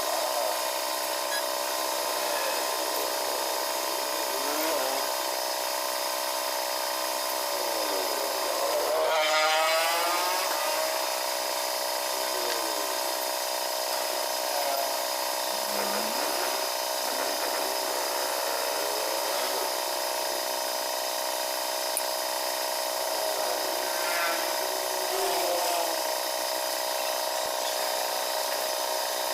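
Steady machine whine, a motor running with several even tones, its pitch sweeping up and down briefly about nine seconds in.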